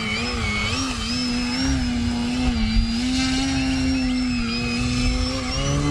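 Electric brushless motor and 13x5 wooden propeller of an E-flite Ultimate 3D RC plane held in a hover, its steady hum wavering slightly up and down in pitch as the throttle is worked.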